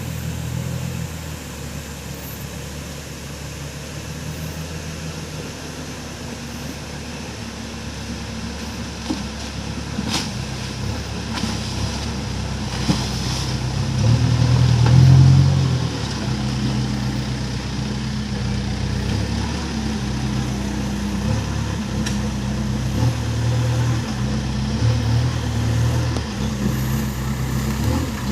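Diesel engine of a Case Super M backhoe loader running, its note shifting as it works, with a louder surge about halfway through.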